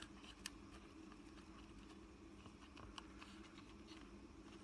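Near silence: faint clicks and light rustling of fingers pressing adhesive tape and wires inside an opened plastic drone remote controller, two clearer ticks about half a second and three seconds in, over a low steady hum.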